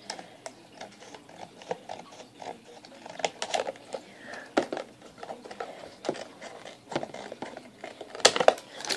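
Scissors cutting through a thin plastic food container: irregular snips and crackles of the plastic, the cut going stubbornly, with a louder cluster of snaps near the end.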